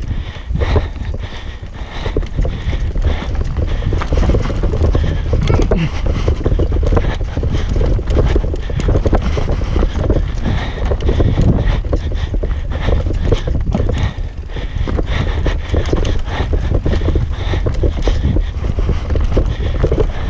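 Mountain bike descending a rough dirt singletrack. A continuous dense clatter comes from the tyres, chain and frame over roots and rocks, over a low rumble.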